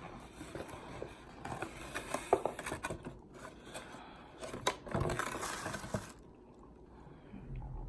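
Light handling noises: scattered clicks, scrapes and rustles, busiest in the middle and fading near the end.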